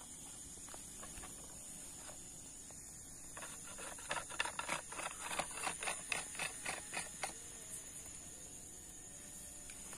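Steady high-pitched buzz of insects in the grass. About three and a half seconds in, a run of about a dozen sharp clicks, roughly four a second, stops a few seconds later.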